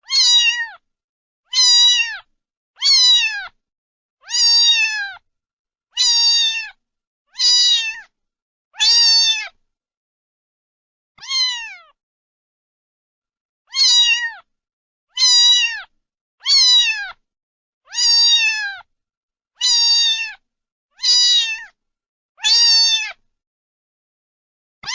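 A cat meowing over and over, about fifteen meows spaced roughly a second and a half apart, each one dropping in pitch at its end, with a longer pause about halfway through.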